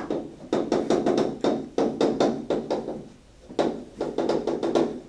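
Chalk writing on a blackboard: a quick run of taps and short strokes, about three a second, with a brief pause a little after three seconds in.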